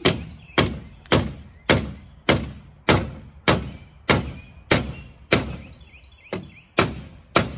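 A hammer striking the coop's wooden frame, about thirteen even blows a little under two a second, each a sharp knock with a short ring; one blow near the end lands lighter.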